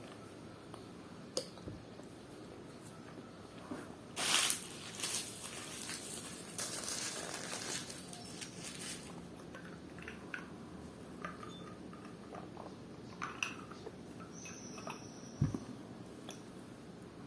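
Close-miked eating sounds of a large fried coxinha being bitten and chewed: soft wet mouth clicks and squishes, with a run of louder noisy bites and chewing between about four and nine seconds in. A single low thump comes near the end.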